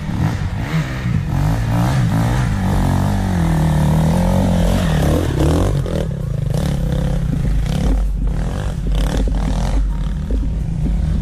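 Enduro dirt bike engine revving up and down under load as the bike climbs a steep gully and passes close by around the middle.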